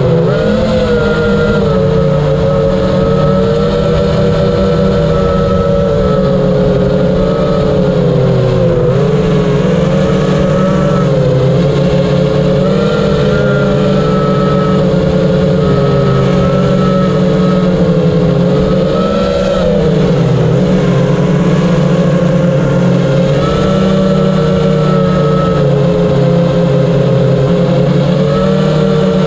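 FPV quadcopter's brushless motors whining, the pitch rising and dipping together with throttle changes. The pilot calls one motor bad.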